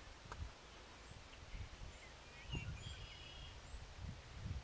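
Wind buffeting the microphone in gusts, with a few faint bird chirps in the middle.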